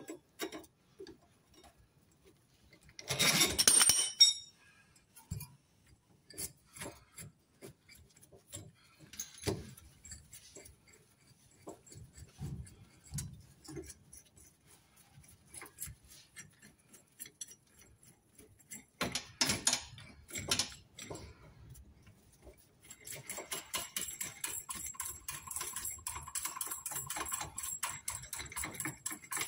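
Metal hand tools clinking and knocking now and then, with louder metallic clatters near the start and about two-thirds through. Near the end a ratchet wrench starts clicking rapidly and steadily while backing off the fitting used to push out the rear lower shock bush.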